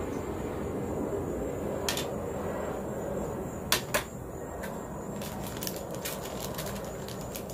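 Handling of small hard parts: a sharp click about two seconds in and two more close together near four seconds as items are set down. Then rapid crinkling of a plastic bag, all over a steady low background rumble.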